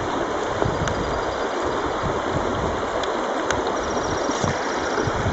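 Steady rush of flowing river water, with a couple of faint clicks.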